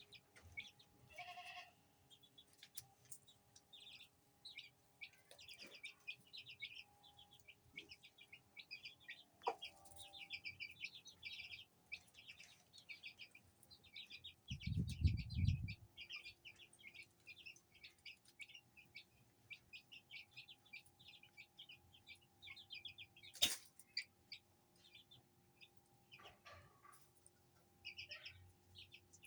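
Baby chicks peeping continuously in rapid, high, short chirps. About halfway through comes a brief low rumble, the loudest sound here, and later a single sharp click.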